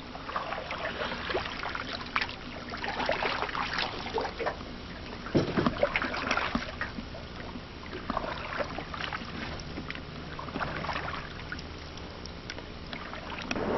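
Canoe being paddled on still water: paddle strokes dipping and splashing, water trickling and dripping in irregular small splashes, with a louder thump about five seconds in.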